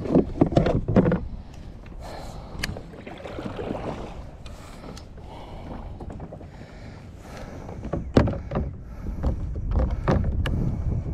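Knocks and clatter of gear handled on a plastic kayak as the fish finder's sun cover is taken off and set down, loudest in the first second. Then wind and water lapping at the hull, with a few more knocks about eight seconds in.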